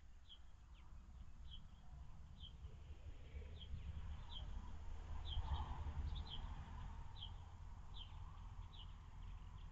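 A small bird calling: a short, high, downward chirp repeated about once a second, now and then doubled, over a steady low rumble.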